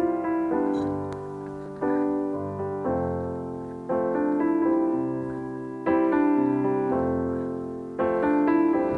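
Background music: slow solo piano chords, each struck and left to fade before the next.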